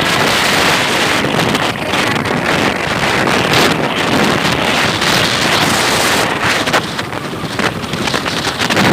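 Strong wind buffeting the microphone in a loud, continuous rush, easing slightly near the end.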